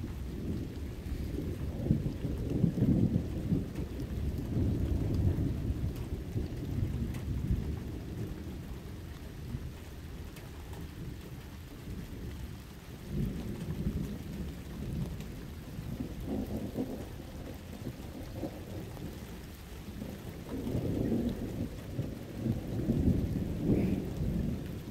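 Distant thunder rumbling in long, low rolls that swell and fade, the strongest in the first few seconds and again near the end, over rain falling.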